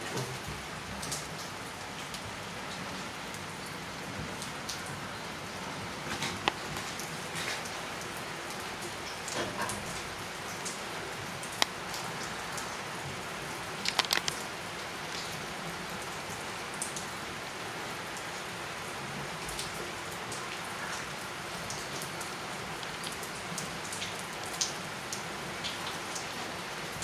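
Steady rain falling, with a few sharp taps of drops or knocks standing out now and then.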